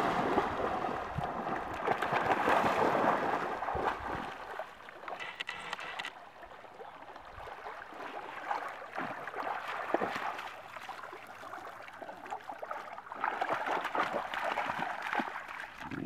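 Dogs splashing into a lake and swimming: heavy splashing for the first few seconds, then quieter sloshing and lapping of water while they swim, and splashing again near the end as they wade out through the shallows.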